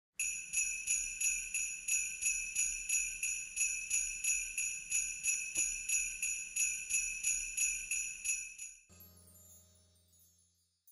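Sleigh bells shaken in a steady rhythm, about three shakes a second. They stop shortly before the end.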